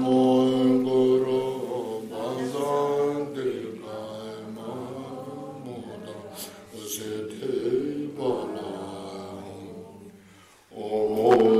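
Buddhist liturgical chanting: voices chanting a prayer on a low, steady pitch. It is softer through the middle, breaks off briefly near the end, then resumes louder.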